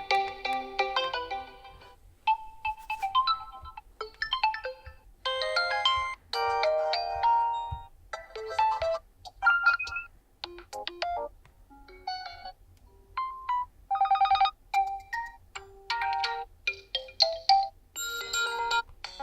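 Realme 11 smartphone ringtones previewed one after another: a quick run of short electronic melodies, each only a few notes long and cut off sharply as the next one starts.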